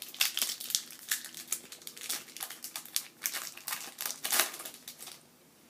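Crinkling foil wrapper of a Pokémon trading card booster pack being handled and opened by hand: dense, irregular crackles that stop about five seconds in.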